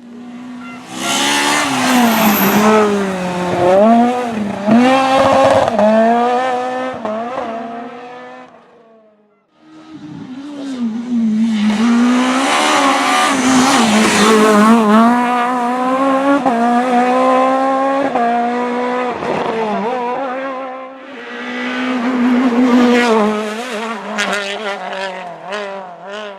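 Rally cars at full attack on a stage, their engines revving high and dropping again and again through gear changes and lifts. The sound fades out about nine seconds in before the next car arrives, and another surges in after a short dip near the end.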